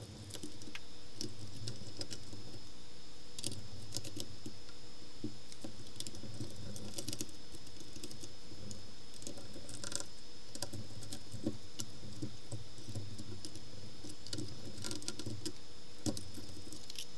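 Small clicks and light rattles of hands handling a multimeter's circuit board and plastic case, taking out the small self-tapping screws that hold the board in place. The clicks come irregularly, with small clusters about 3.5, 7, 10 and 15 seconds in.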